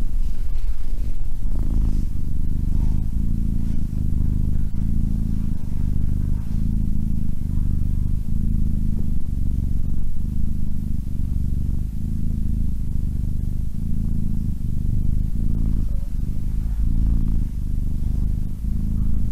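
Tabby kitten purring close to the microphone: a steady low rumble that pulses evenly about once a second with its breathing.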